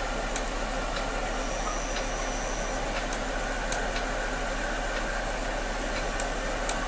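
Steady microphone hiss with a low mains hum, broken by about five faint, sharp computer mouse clicks, some in pairs.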